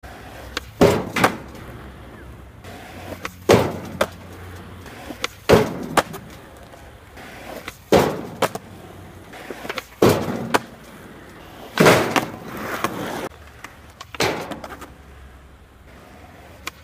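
Skateboard on asphalt: wheels rolling under a series of loud sharp clacks and bangs, often in pairs, from the board popping, landing and striking an overturned bathtub, about every two seconds. About twelve seconds in comes one longer scraping slide of the board along the tub's edge.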